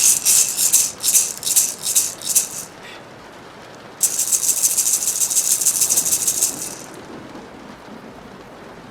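A hand rattle shaken in quick, even strokes for about two and a half seconds. After a pause of over a second it is shaken again in a continuous rustle for nearly three seconds, then stops.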